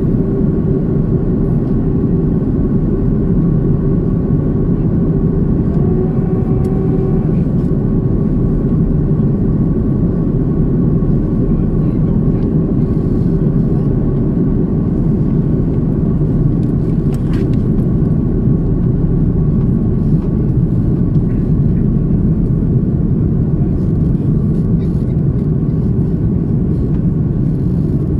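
Steady, loud droning cabin noise of a vehicle under way, a low rumble with a few constant hums running unchanged throughout.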